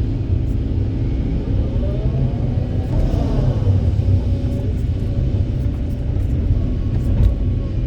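Kobelco 200SK excavator's diesel engine running under load with a steady low rumble, and a hydraulic whine that rises and then falls about two to four seconds in as the machine works.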